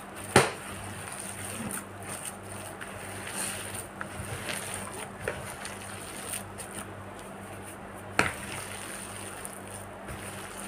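A gloved hand kneading and squeezing a moist grated-carrot mixture in a plastic bowl, with soft squishing and a few sharp knocks. The loudest knock comes about half a second in and another about eight seconds in, over a steady low hum.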